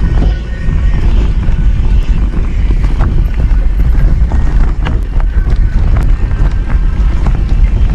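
Mountain bike being ridden along a dirt singletrack trail. A loud, steady rumble of tyre and wind noise on the bike-borne camera, broken by frequent sharp clicks and knocks as the bike rattles over bumps.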